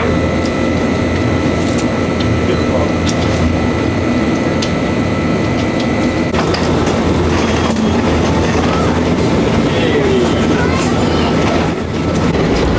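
Wakayama Electric Railway 2270 series electric train running steadily, with a continuous low rumble and the click of its wheels over the rail joints.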